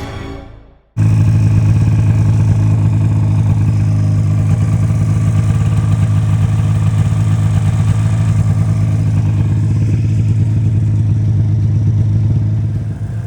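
Snowmobile engine running at a steady speed: a loud, even drone that cuts in suddenly about a second in, just as music stops. It drops in level near the end.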